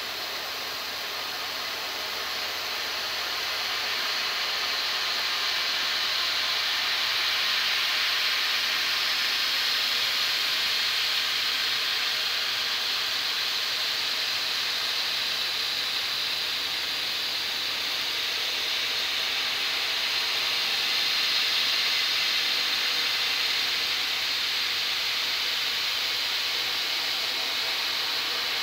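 Ingersoll Stedi-Round solid carbide variable-pitch end mill milling 4140 steel on a CNC machine: a steady, even noise of cutting, strongest in the upper range, growing a little louder a few seconds in and then holding.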